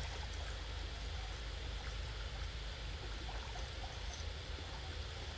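Small waves on a calm lake lapping steadily at a sandy shore, with a low rumble underneath.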